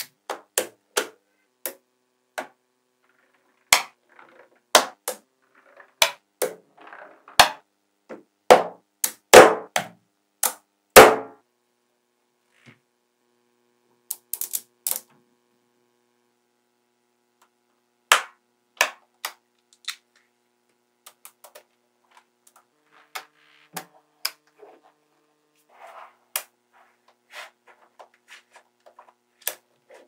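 Small magnetic balls clicking sharply as they snap together and onto a build made of them: irregular single clicks and short quick runs, with a few brief pauses.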